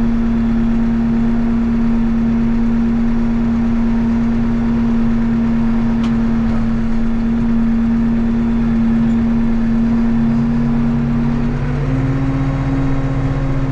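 Case 580 Super M backhoe's diesel engine running steadily, heard from inside the cab as the machine moves off. Its pitch rises slightly near the end.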